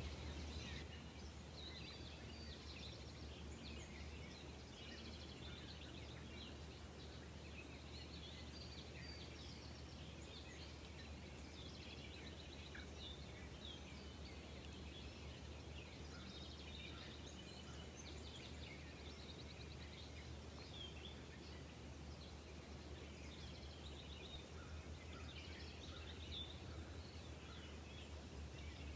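Faint outdoor ambience: many distant songbirds chirping and trilling, over a steady low hum.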